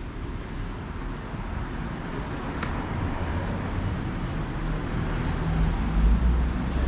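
City street traffic: a steady low rumble of passing motor vehicles, swelling into a louder engine rumble in the last couple of seconds, with a single brief click a little over two seconds in.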